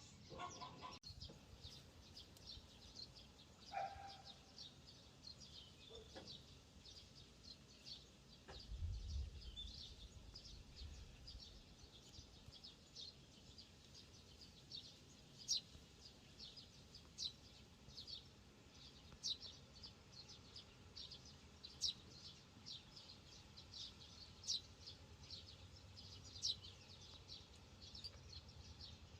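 Faint birdsong: small birds chirping over and over in quick high notes, with a few louder chirps in the second half. A brief lower call sounds about four seconds in, and a short low rumble about nine seconds in.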